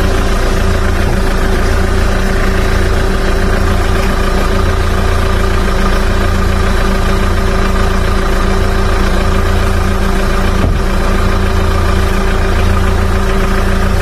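Hyundai Porter truck's engine idling steadily with the air conditioning switched on, heard up close in the open engine bay while refrigerant is being charged into the system.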